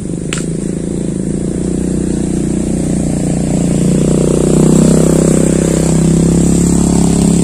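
A motor engine running, growing louder over the first few seconds and then holding steady. There is a short click just after the start.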